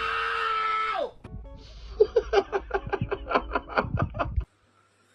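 Music: a held note that slides down and stops about a second in, then a quick run of short plucked notes, about six a second, that cuts off suddenly near the end.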